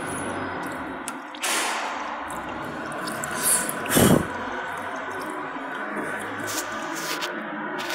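Coolant splashing and washing over an aluminium mold on a CNC engraving machine's table, a steady watery noise with a brief louder hiss about a second and a half in and a short, louder splash or knock about four seconds in.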